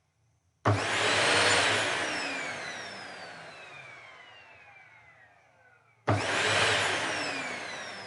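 Vacuum cleaner motor switched on with a sudden loud start and then left to spin down, its whine falling steadily in pitch and fading. This happens twice, the second start about six seconds in.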